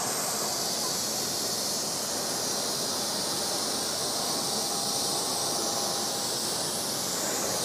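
Steady hiss of compressed air blowing through a plasma cutter's torch: the post-flow air that cools the torch once the cut is done.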